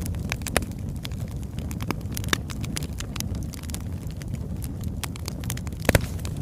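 Birch logs burning with a steady low rumble of flames and frequent sharp crackles and pops at irregular intervals, the loudest pop a little before the end.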